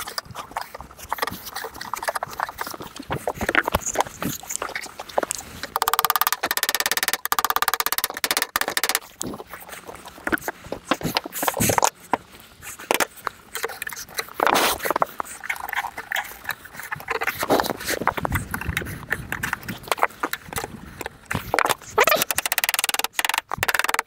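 Hand seaming pliers working steel standing-seam roofing flashing at a chimney: irregular clicks, knocks and taps of the tool on the sheet metal. About six seconds in, a steady metallic tone lasts for a couple of seconds.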